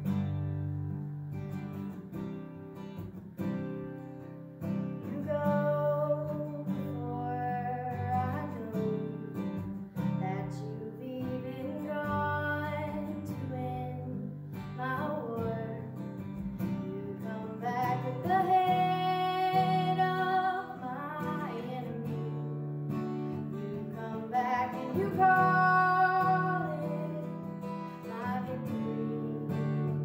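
Acoustic guitar strumming chords to accompany a woman singing a slow melody, her voice coming in about five seconds in.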